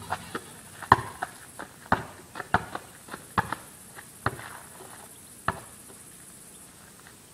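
Basketball bouncing on a concrete driveway: a string of sharp, irregularly spaced thuds, the loudest about a second in, thinning out and stopping after about five and a half seconds.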